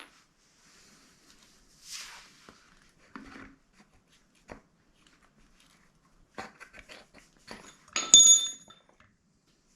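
Metal hand tools and small metal parts being handled: scattered clicks and knocks, then a loud ringing clink of metal on metal about eight seconds in.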